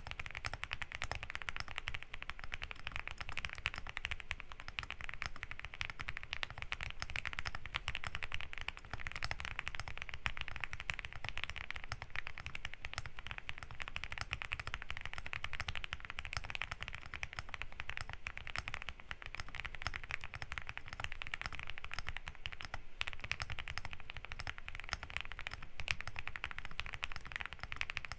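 Fast, continuous typing on a Zoom65 Essential Edition mechanical keyboard fitted with Lilac linear switches, a polycarbonate plate and NicePBT keycaps: a dense, steady stream of keystroke clacks.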